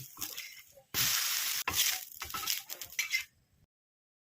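Dosa sizzling on a hot griddle. The sizzle starts suddenly about a second in, comes in a few loud spells, then stops dead just before the end.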